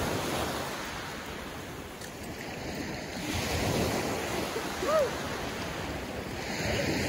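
Small waves breaking and washing up on a gravel shore, a steady surf wash that swells and eases. A short high cry about five seconds in.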